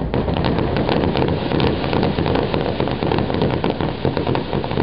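Fireworks crackling: many rapid small pops running together into a dense, continuous crackle from low-burst crackling effects.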